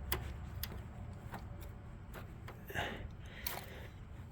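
A few short clicks and handling noises, about five spread over a few seconds, as the engagement cable is worked into a small plastic cable clip on the lawn tractor, over a steady low hum.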